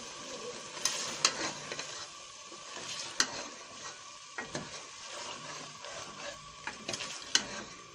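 Metal ladle stirring black chickpeas and potatoes through a sizzling masala in a metal pot, the curry frying steadily, with several sharp clinks of the ladle against the pot.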